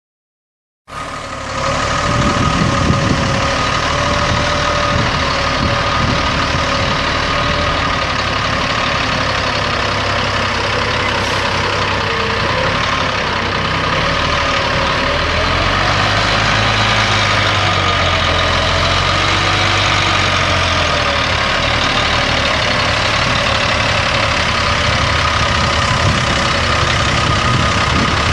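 Cummins L10 turbo diesel of a Ford LT9000 mixer truck idling steadily, starting about a second in, with a steady high whine over the engine note.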